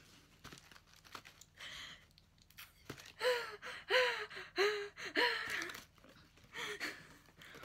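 Cardboard mailer box being handled and opened, with rustling and crinkling of the packing. About three seconds in, a woman makes four short, excited vocal squeaks in quick succession.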